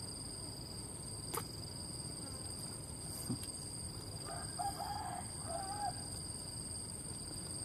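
Steady high-pitched chorus of insects shrilling without a break, with a faint bird call in three short notes between four and six seconds in.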